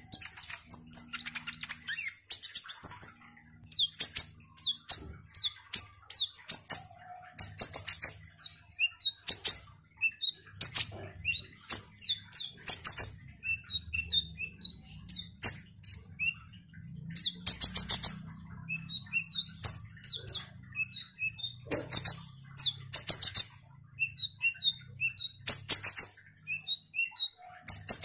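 A male kolibri ninja (a sunbird) singing in a cage: rapid high-pitched chirps and short twittering trills in clusters, one after another, mixed with sharp clicks.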